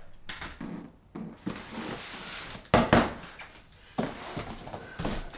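Cardboard boxes being handled and moved: scraping and rustling with several dull thumps, the sharpest about three seconds in.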